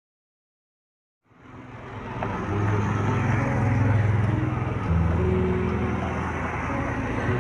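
Silence for about a second, then street traffic noise fades in and holds: a steady low rumble of vehicles running past.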